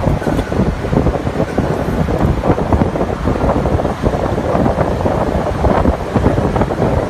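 Large engine lathe running as it turns a forged aluminium disc: a loud, dense, steady rumbling machine noise.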